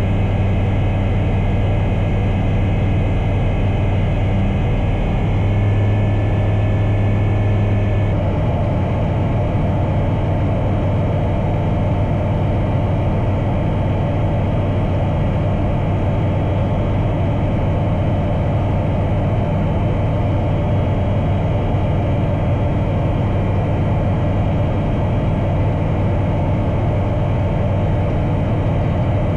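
Bristell Classic light aircraft's piston engine and propeller droning steadily in flight. The tone of the drone shifts about eight seconds in, then holds steady.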